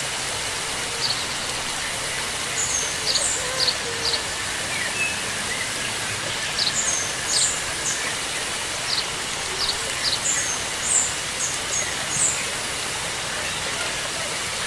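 Steady hiss of running water, with small birds repeatedly giving short, high chirps over it, often in quick pairs.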